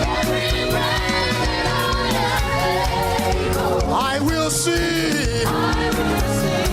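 Live up-tempo gospel praise music: a lead singer and congregation singing together over a band with a steady drum beat.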